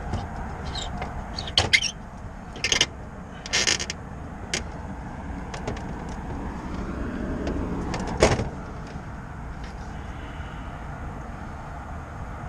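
Hand-tool work on a rooftop heat pump: a few separate sharp clicks and knocks, one a short scraping rasp, over a steady low background hum.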